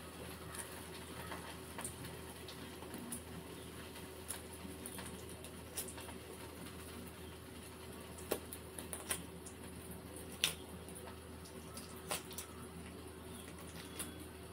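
Faint crackling and scattered small clicks of shell being cracked and picked off hard-boiled eggs by hand, over a low steady hum.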